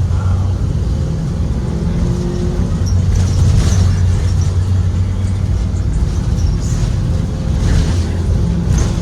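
Ford 7.3-litre V8 engine of a Blue Bird Vision school bus running steadily under way, a continuous low drone heard from inside the bus along with road noise and a few short sharper noises.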